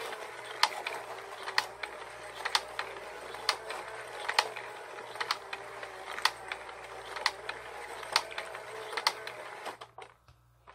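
Motorized children's fishing-game toy running, its gears turning the pond of fish with a steady whir and a sharp click about once a second, too loud. It cuts off suddenly near the end as the toy is switched off.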